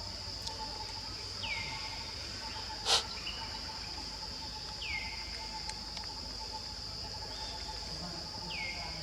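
Steady high-pitched insect chorus, like crickets or cicadas, with a low steady hum under it. A short falling call sounds three times, about three and a half seconds apart. One sharp click about three seconds in is the loudest sound.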